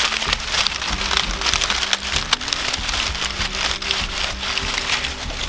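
Dry leaves and twigs crackling and rustling as a hand pushes through brittle leaf litter on the ground.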